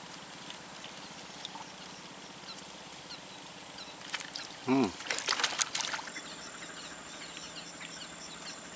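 Quiet waterside ambience. About five seconds in, a man gives a short exclamation, followed by a brief burst of splashing and clicks. Faint bird chirps repeat near the end.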